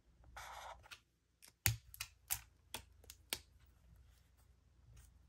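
Zebra Mildliner highlighter tip drawn across paper in a short stroke, followed by about six sharp plastic clicks as marker caps are pulled off and snapped on while markers are swapped.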